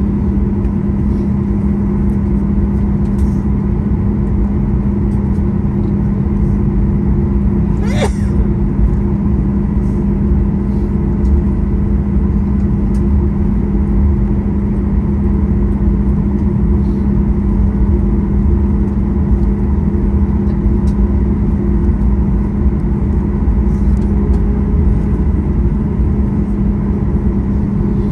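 Cabin noise of a Boeing 737 MAX 8 taxiing with its CFM LEAP-1B engines at idle: a steady low engine hum over a rumble. A brief sharp click sounds about 8 seconds in.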